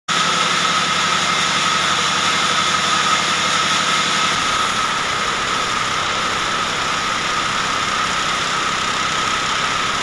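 Band sawmill running, its blade cutting a log: a steady high whine over a constant mechanical din. A low hum drops away about four seconds in.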